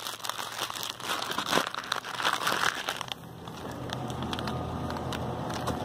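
Plastic candy-bag packaging crinkling and rustling as it is handled. About three seconds in, the crinkling gives way to a steadier, quieter low hum.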